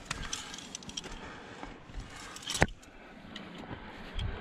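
Climbing hardware clinking on a harness and gloved hands and shoes scuffing on granite during a roped climb, with a run of small clicks and scrapes, one sharp click about two and a half seconds in, and a low thump near the end.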